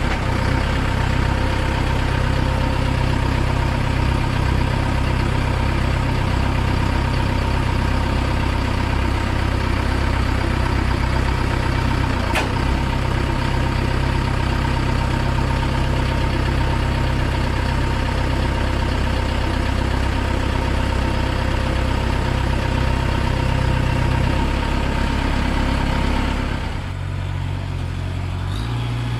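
Truck crane's engine running steadily, driving the hydraulic pump as the outrigger control valve levers are worked. One sharp click about twelve seconds in. Near the end the level drops slightly and the hum settles to a different pitch.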